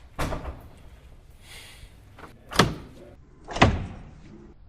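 Three heavy thuds, a sudden knock and a short ringing decay each time: one just after the start, then two more about a second apart near the end.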